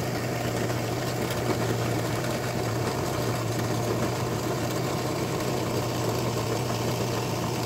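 Drill press running steadily with a constant low hum as a small bit bores down through the nozzle into a cured homemade ammonium perchlorate composite rocket motor.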